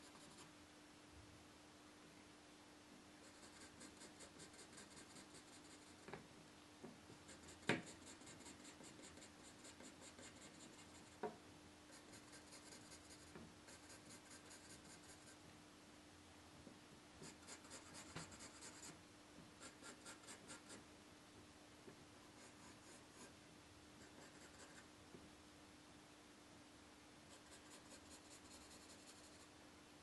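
Pencil hatching on paper: faint runs of quick back-and-forth strokes, a second or a few long, with short pauses between, over a steady low hum. Two light clicks come about 8 and 11 seconds in.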